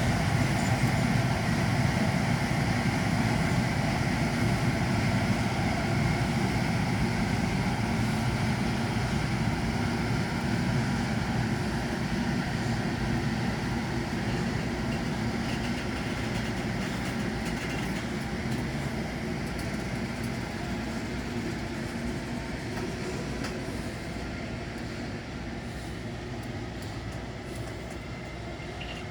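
Container freight train hauled by an electric locomotive, rolling along with a steady low rumble that slowly fades over the span.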